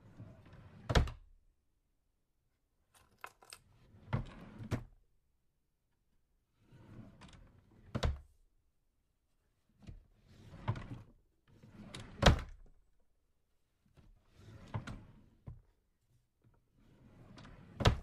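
Small drawer slid open and shut again and again: about seven short sliding rumbles, each ending in a sharp knock as the drawer hits its stop. The loudest knock comes about twelve seconds in.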